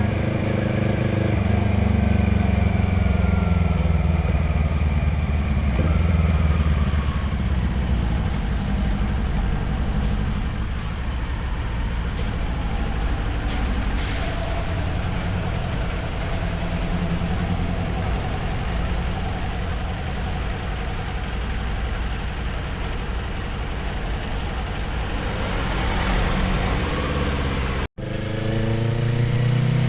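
Motorcycle engine and exhaust heard from the rider's position while riding: the engine note falls as the bike slows, then runs lower and steadier under wind and road noise. There is a single sharp click partway through, and near the end the sound cuts out for an instant before the engine picks up again.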